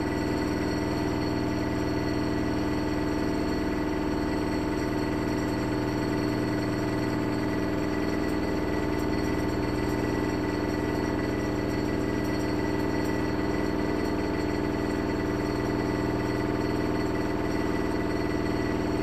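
Haier HLC1700AXS washer/dryer combo in its final spin with an unbalanced load: the drum motor runs with a steady whine and hum made of several fixed tones, holding one pitch and never ramping up.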